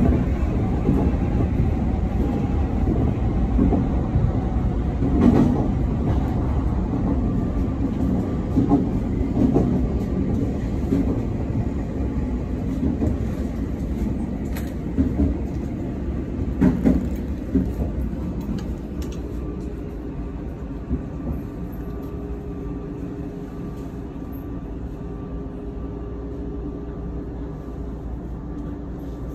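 Commuter electric train heard from inside the carriage, its wheels rumbling on the rails with sharp clacks over rail joints and points. The rumble eases to a quieter steady hum with a faint whine as the train slows to a stop at a platform.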